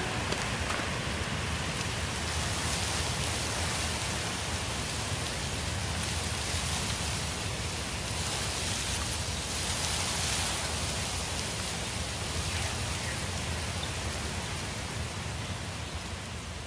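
Steady rain-like hiss of ambience, even and without any tone, fading down over the last couple of seconds.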